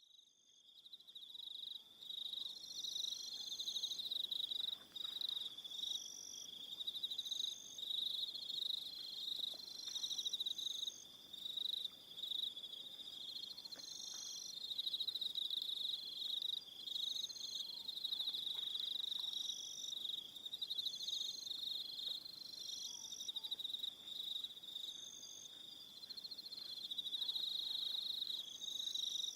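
Evening chorus of crickets chirping: a dense, steady high trill with shorter, higher chirps repeating every second or two over it. It fades in from silence over the first couple of seconds.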